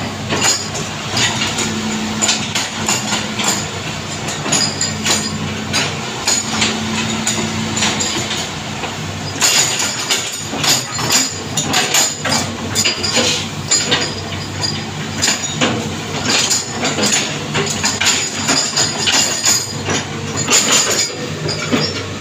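Hitachi ZX210 hydraulic excavator's diesel engine running steadily under work, with frequent metallic clanks and rattles from its steel tracks and arm linkage. The clanking gets busier about halfway through.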